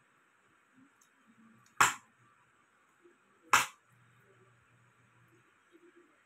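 Two sharp, loud snaps, a little under two seconds apart.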